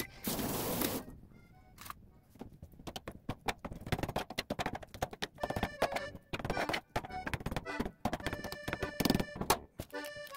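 A metal utensil scraping and clicking rapidly against a plastic bowl while stirring wet cat food, under light background music. A short hiss lasts about the first second.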